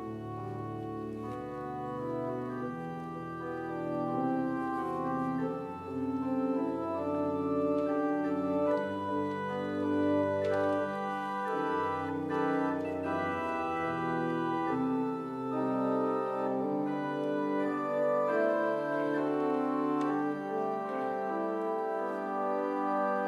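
Organ playing sustained chords in a slow instrumental piece, with the low bass notes dropping out about halfway through.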